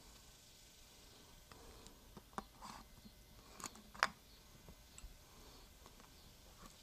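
Faint, sharp clicks of a small hand tool and parts against a disassembled aluminium carburetor. There are three separate clicks from about two and a half to four seconds in, the last the loudest.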